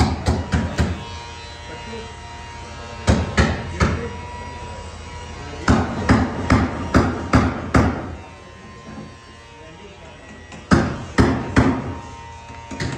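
Hammer blows on wood, struck in short runs of three to six quick strikes with pauses between the runs.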